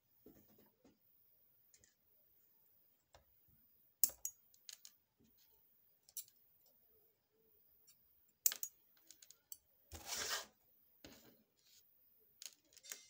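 Scattered sharp clicks and snips, with one short rasp about ten seconds in, from thin hookup wire being handled and cut off a spool.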